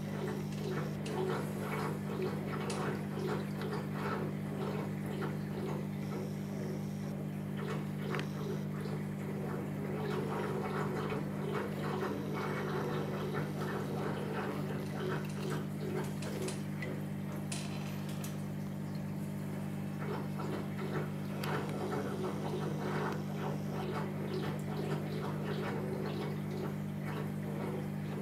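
Aquarium pump running with a steady low hum, water trickling and bubbling over it with small irregular ticks.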